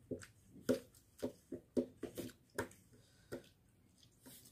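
A hand mixing and mashing soaked rice in a steel bowl: about a dozen short, irregular squishing and scraping strokes, dying away about three and a half seconds in.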